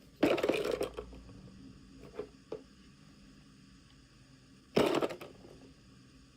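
Small plastic packaging and pieces handled during an unboxing: two short bursts of clicking and rattling about four and a half seconds apart, with a couple of light clicks between them.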